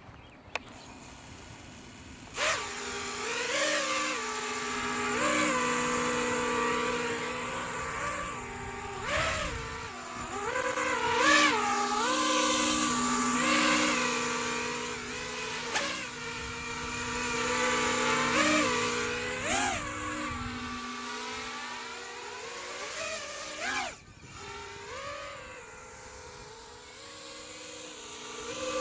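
Quadcopter with EMAX 2205S brushless motors on TBS Bulletproof 24A ESCs whining, the pitch rising and falling over and over as the throttle changes. A steady droning tone runs under it for most of the time: the strange 'harmonic' sound the quad has made since the motor and ESC upgrade.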